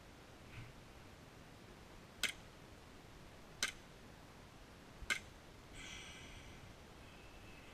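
Three single airsoft pistol shots, each a sharp short crack, about a second and a half apart. About a second after the third shot comes a short, faint ringing tone.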